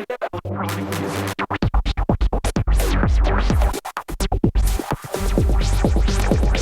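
Electronic dance music with a chopped, stuttering break: the track is cut into rapid repeated fragments for a few seconds, then the full kick-drum beat comes back in about five seconds in.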